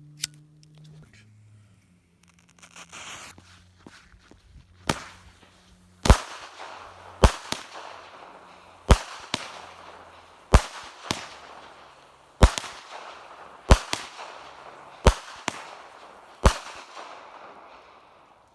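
X Factor 8-shot consumer firework cake going off. A short fuse hiss comes first, then eight loud shots at roughly one-and-a-half-second intervals, each followed moments later by the crack of its aerial burst.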